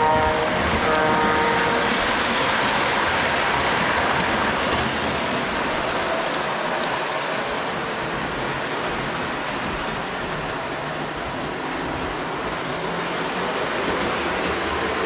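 Lionel O-gauge model train running on three-rail track: a steady rolling rumble and hiss of the wheels and motor. A horn sounds briefly in the first two seconds.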